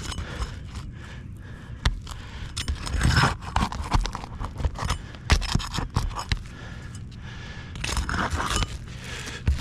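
Old asphalt 3-tab shingles being pried up to free a nail, making irregular scraping and crunching with a few sharp knocks. The brittle, aged shingles crease as they are lifted.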